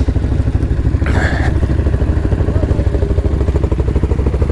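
Can-Am Outlander 800R ATV's V-twin engine running steadily under way, with a brief clatter about a second in.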